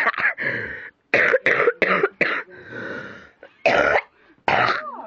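A person coughing in a series of short, harsh bursts: a run of quick coughs about a second in, then two more strong ones near the end.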